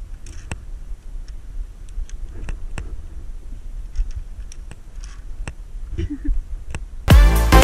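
Scattered light metal clicks and clinks, irregular and a second or so apart, from carabiners and lanyards on the steel safety cable of a rope bridge, over a low rumble. Loud electronic dance music cuts in near the end.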